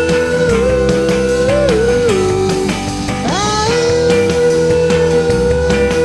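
Rock band playing an instrumental passage: a guitar holds a long bending lead note, slides up sharply about three seconds in, over a steady drum beat.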